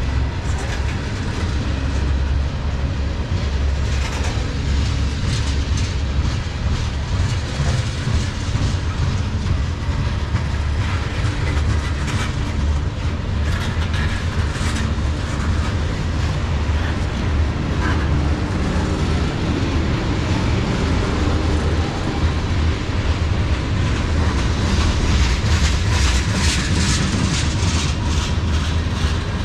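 Freight train of tank cars rolling past: a steady rumble of steel wheels on rail with the clickety-clack of wheels over rail joints, the clicking thickest near the end.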